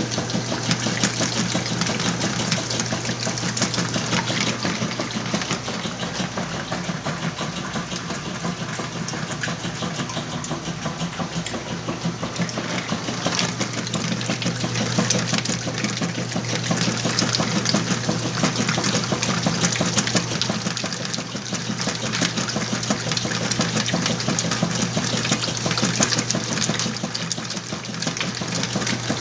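Whirlpool washing machine running a wash cycle: a steady motor hum with water churning in a full load of clothes.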